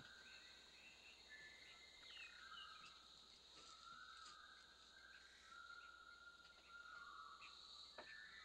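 Faint jungle ambience: a steady high insect drone with birds calling over it in drawn-out whistling notes. A single soft knock comes near the end.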